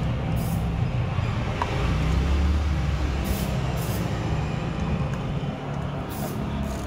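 Ratchet handle clicking in a few short bursts as the stator's screws are driven down on the engine's crankcase, over a steady low rumble of vehicle traffic.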